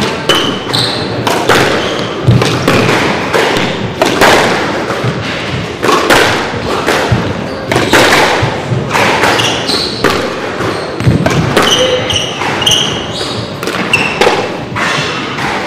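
Squash rally: the ball is struck by rackets and smacks off the walls in quick, uneven succession, with sneakers squeaking on the wooden court floor between shots.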